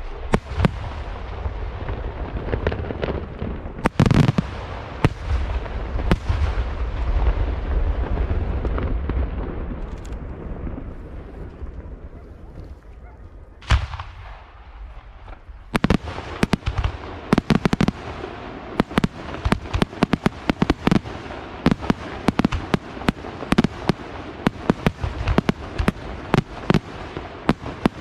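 A fireworks display: booming shell bursts over a continuous low rumble, dying away about halfway through. A single sharp bang follows, then from a little past halfway a fast, dense string of sharp cracks.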